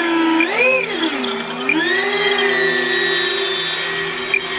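Electric ducted fan motor of an RC jet run up by throttle: a whine that rises, drops about a second in, then climbs again and holds steady.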